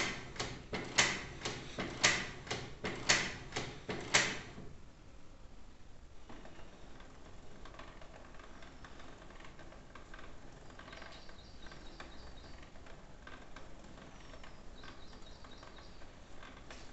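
Canon inkjet printer's mechanism clacking about twice a second for the first four seconds, then running on with a faint whirring and light ticking. It is getting ready to print its first page after the refilled cartridges were fitted, which takes a while.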